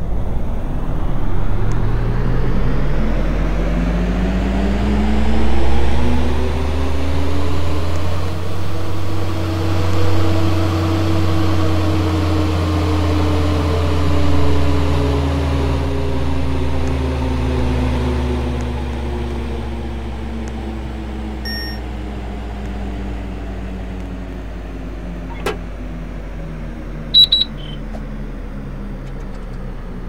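Air conditioner running with a pitched motor hum that climbs over the first ten seconds or so, then slowly sinks. A click comes near the end, then a couple of short high beeps.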